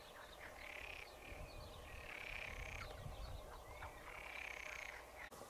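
Animal calls repeated about three times, each under a second long.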